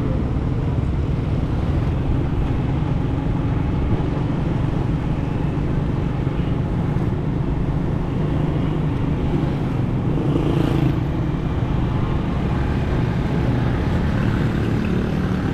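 Motorcycle riding along a city road, its engine running steadily under a low, even rumble of road noise, with other traffic around it.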